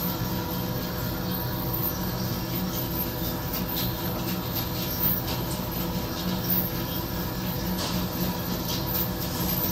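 A steady mechanical hum with several steady tones, from equipment running behind a restaurant counter. A few faint taps come through it as a finger presses a cash-register touchscreen.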